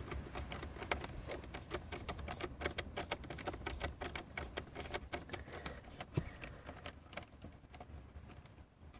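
Hand screwdriver turning out a screw that holds a car speaker's metal frame to a plastic panel: a rapid run of small clicks and scrapes, thinning out near the end.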